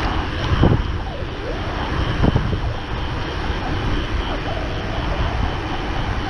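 Steady rush of wind on the microphone mixed with tyre noise from a mountain bike rolling at speed on asphalt.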